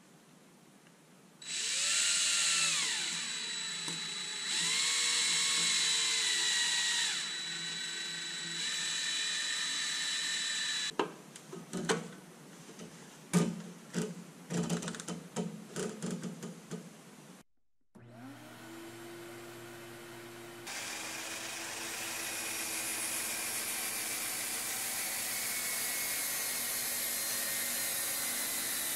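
Power drill boring into a wooden dust hood in three runs, its pitch rising and falling with the trigger, followed by a series of clicks and knocks. Then a motor spins up to a steady hum, and a few seconds later a louder steady whine joins it as the DeWalt miter saw runs with its dust extraction on.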